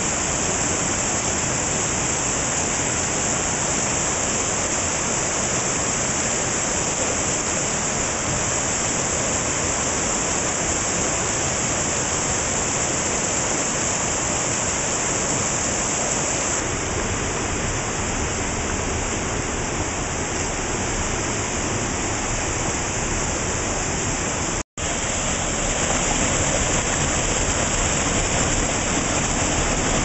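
River rapids rushing over rocks, a steady loud rush of water, with a split-second break about three-quarters of the way through.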